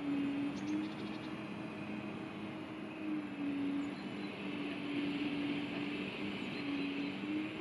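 Hydraulic pump of a 1:8 scale RC Caterpillar 390D model excavator humming steadily as the boom and bucket work, its pitch dipping briefly a few times as the load changes.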